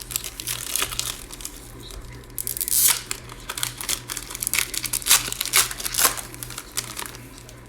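Plastic trading card pack wrapper being torn open and crinkled in the hands, a long run of sharp crackles that is loudest about three and five seconds in.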